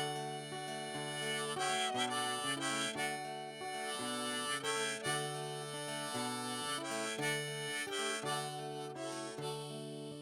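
Instrumental break in an acoustic folk song: a harmonica playing a melody of held notes over strummed acoustic guitar.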